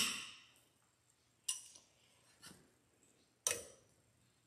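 Sharp metallic snips and clicks from cutting pliers trimming and bending a steel cotter pin in a propeller nut. There are four, about a second apart, the loudest right at the start and one near the middle faint.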